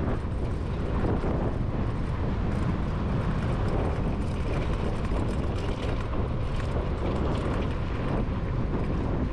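Wind buffeting the microphone, with tyre rumble, while riding an electric dirt bike at speed; a steady rush with no clear motor tone.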